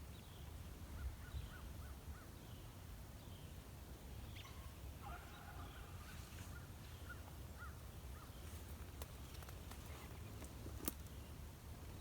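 Beagles baying faintly in the distance as they run a rabbit, over a bird's repeated high, falling chirps, with one sharp click near the end.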